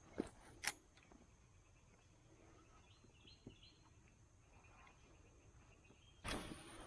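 Quiet riverside ambience with faint bird chirps. Two sharp clicks come about half a second apart near the start, and a brief rushing noise comes near the end.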